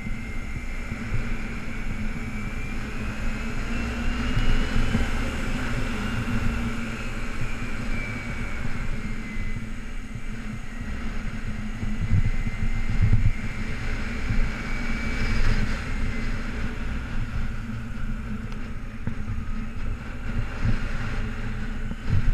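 2008 Kawasaki Ninja 250R's parallel-twin engine running under way at low speed. Its note rises and falls twice as the throttle is opened and eased. Wind buffets the helmet-mounted microphone.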